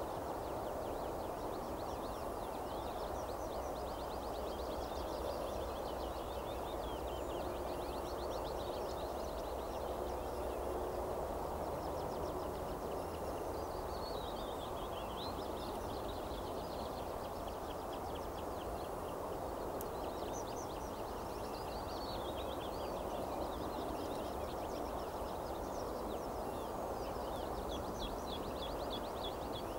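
Songbirds singing, with fast repeated trills and a few descending whistled phrases, over a steady background noise.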